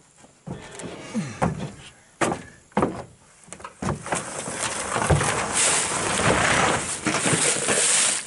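A deer carcass being hauled into a pickup bed: a run of knocks and thumps against the tailgate and bed, then a long scraping as the carcass is dragged across the ribbed plastic bed liner.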